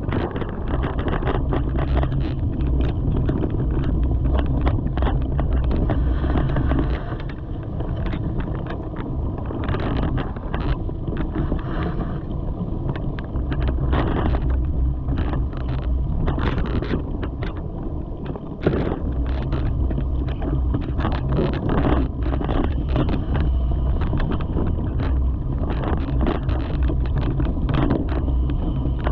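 Mountain bike ridden over a leaf-covered dirt trail: wind rumbling on the camera microphone, with tyres rolling over leaf litter and frequent clicks and rattles from the bike over bumps. The rumble eases twice, and a sharp knock about two-thirds of the way in is the loudest moment.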